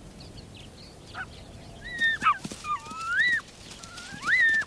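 Ethiopian wolf pups whining and yelping as they greet the returning adults. A few faint short squeaks come first. From about two seconds in come several loud, high whines that slide up and down in pitch.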